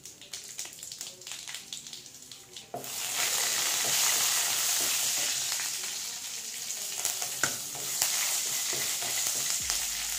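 Spices frying in hot oil in a kadai for a rasam tempering: mustard seeds and dried red chillies crackle faintly at first, then about three seconds in the oil breaks into a loud, steady sizzle. Curry leaves go into the oil and a wooden spatula stirs, with a few sharp crackles and scrapes over the sizzle.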